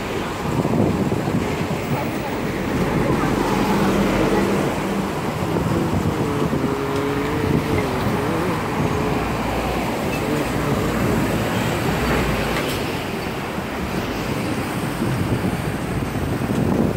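Road traffic on a multi-lane city street: a steady wash of passing cars and tyre noise.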